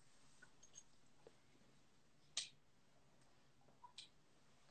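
Near silence: room tone with a few faint short clicks, the clearest about halfway through and a smaller one near the end.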